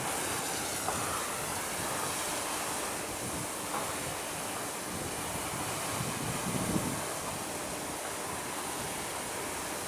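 Wind blowing across the microphone over a steady rushing outdoor noise, with a few low gusty rumbles.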